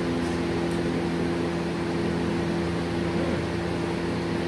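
Steady machine hum, a constant drone of several low tones over a wash of hiss, from a motor or fan running in a workshop.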